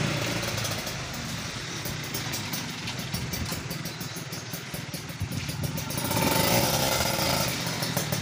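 Kawasaki Ninja RR 150's two-stroke single-cylinder engine running, getting louder for a stretch about six seconds in.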